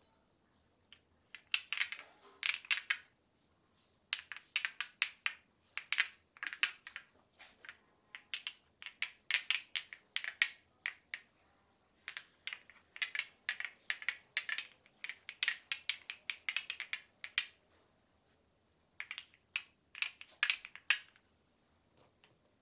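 Hand massage tapping on the arm: runs of quick, light clicking taps, several a second, lasting a few seconds each with short pauses between them.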